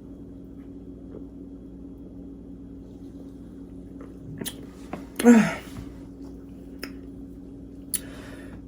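A woman's single short vocal sound about five seconds in, falling in pitch, with a few small clicks and mouth noises around it over a steady low room hum.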